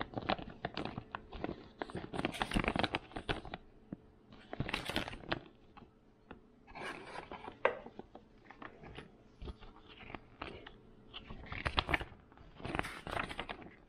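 Packaging of fishing lures being handled and torn open by hand, crinkling and tearing in several bursts with sharp clicks among them.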